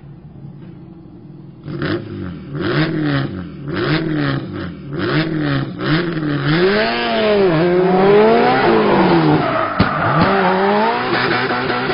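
Subaru Impreza WRX STI rally car's turbocharged flat-four engine comes in loud about two seconds in and revs up and down over and over as the car drifts, with sharp cracks between the early revs. A hiss of sliding tyres builds from about halfway.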